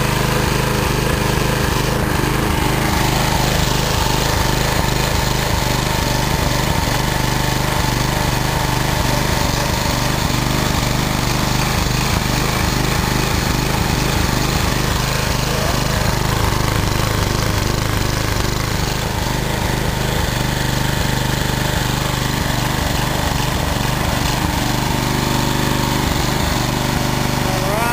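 Small pull-start lawn mower engine running steadily at a constant speed without dying.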